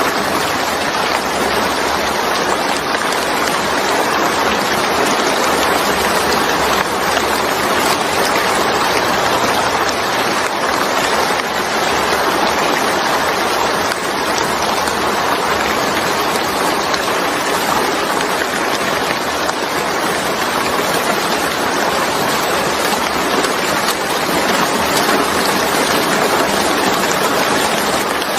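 Steady rain falling, an even, continuous hiss of many drops with no breaks or thunder.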